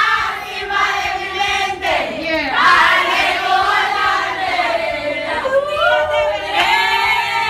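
A group of voices singing together in chorus, a melody carried by many singers.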